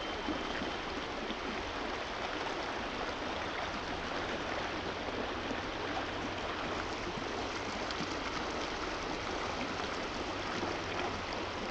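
Stream water running steadily, an even rushing with no breaks.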